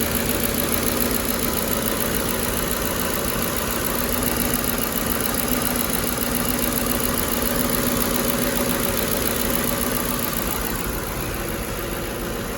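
Ford 5.4-litre 3-valve V8 idling steadily with a constant hum, running on a freshly fitted set of spark plugs.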